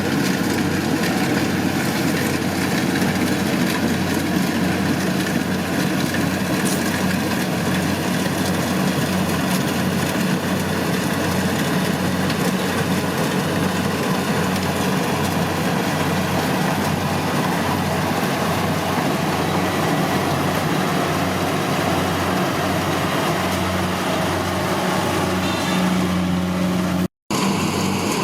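Kubota DC-70 rice combine harvester running steadily, a constant engine drone with a regular low throb. The sound cuts out for a moment near the end.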